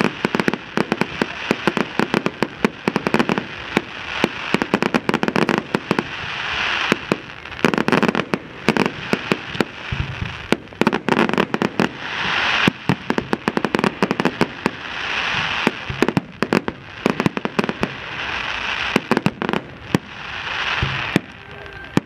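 Fireworks display: a rapid, near-continuous barrage of sharp bangs and cracks from bursting shells, with repeated swells of dense crackle every second or two.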